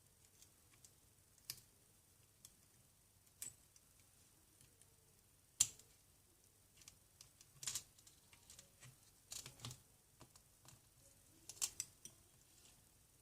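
Faint, scattered clicks and taps of small hand tools against phone parts, a second or two apart, with a few quick ones bunched together about nine and eleven seconds in.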